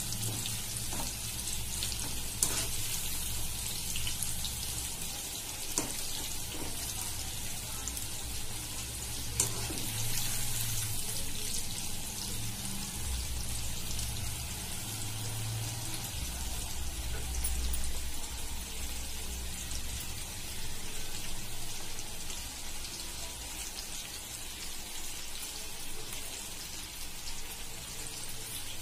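Chicken pieces deep-frying in hot oil in an iron kadai: a steady crackling sizzle with a low rumble underneath. A few sharp clicks come as a wire skimmer stirs the pieces against the pan.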